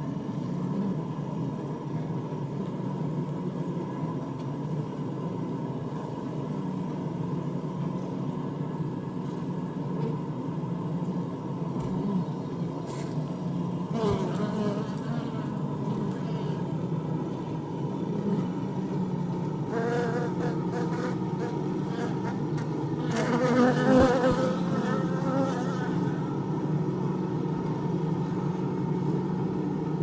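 A honey bee colony humming in an open top-bar hive: a steady, low drone of many wings. About halfway through, and again between two-thirds and five-sixths of the way in, individual buzzes rise louder over it, wavering in pitch.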